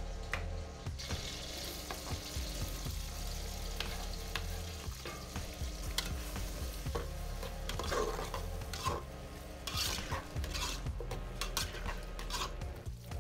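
Sliced red onions and garlic frying in hot oil in a steel pot, sizzling from about a second in, with a spatula stirring and scraping against the pot.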